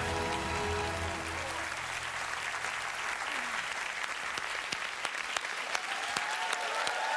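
Music ending in the first two or three seconds, giving way to a studio audience applauding, with sharp individual claps standing out.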